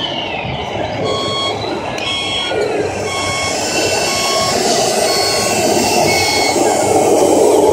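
Reversing beeper of a radio-controlled model work machine, giving short steady beeps about once a second, over a steady hall din.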